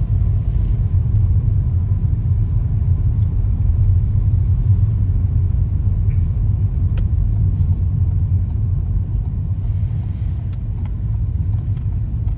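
A car in motion heard from inside the cabin: a steady low rumble of road and engine noise, with a faint click about seven seconds in.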